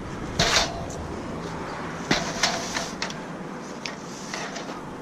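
Metal barbecue grill being wrestled about, with several sharp clanks and rattles, a cluster of them about two seconds in, some leaving a brief metallic ring.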